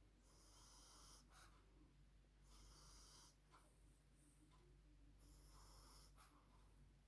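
French bulldog puppy breathing noisily in its sleep. Three faint hissing breaths come about every two and a half seconds, each ending in a brief click.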